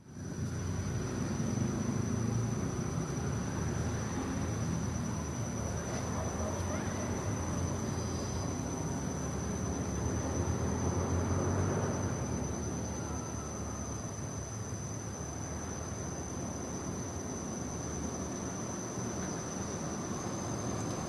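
Steady insect chorus: a constant high-pitched drone holding one note throughout, over a low background rumble.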